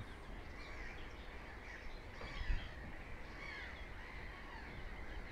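Faint calls of several wild birds, with one soft low bump about two and a half seconds in.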